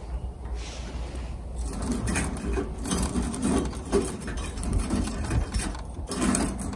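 Wood pellets burning in a homemade stainless-steel stove: a steady low rumble, with irregular crackling and uneven puffs that start about two seconds in.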